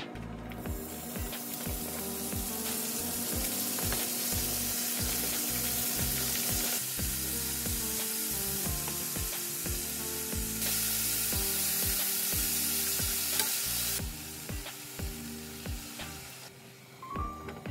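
Sliced cartilage and thin-sliced pork sizzling in hot oil in a frying pan as they are added and stirred; the sizzle begins about half a second in and dies down near the end.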